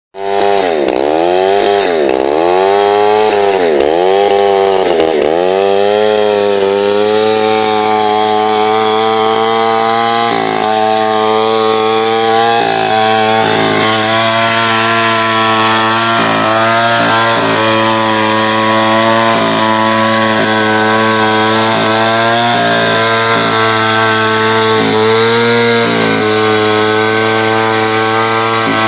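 Soviet two-stroke chainsaw engine running at high speed. In the first few seconds its pitch sags and recovers about once a second, then it runs steadily with small shifts in speed.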